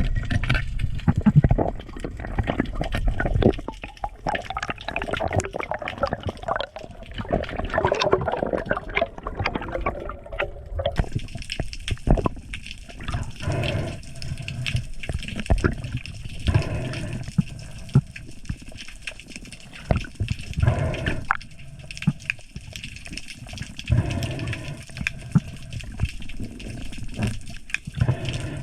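Water sloshing and gurgling in uneven surges, with the sound changing abruptly about eleven seconds in.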